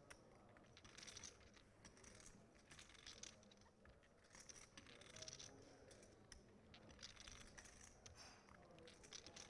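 Near silence at a poker table, with scattered faint clicks from clay poker chips being handled.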